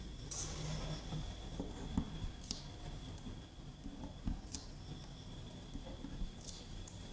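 Fingers peeling small cut-out squares of sticker paper off their backing sheet: soft papery peeling with a handful of light, sharp clicks and ticks.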